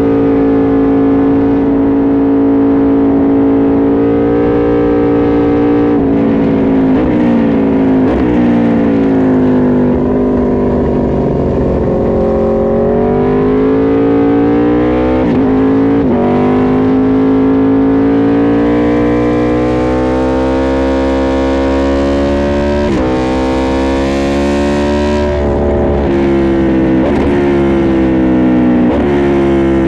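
Aprilia RSV4 RF's V4 engine under hard riding: its pitch falls as the bike slows and climbs as it accelerates, broken by several quick gear changes. Wind rush grows louder at the fastest stretch.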